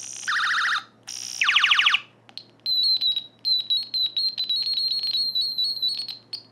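Circuit-bent toy ray gun playing electronic sound effects through its small speaker: two short warbling zaps, then a long, choppy stutter of high-pitched beeps.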